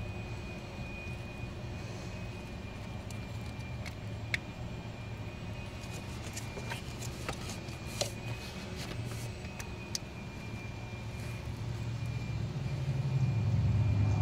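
A few faint clicks and taps of hands working a wiring connector down among engine-bay hoses, over a steady low background rumble that swells near the end.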